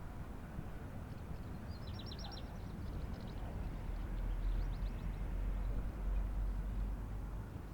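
Park ambience: a steady low outdoor rumble that swells for a few seconds in the middle, with a small bird giving a quick run of high chirps about two seconds in and a fainter run near five seconds.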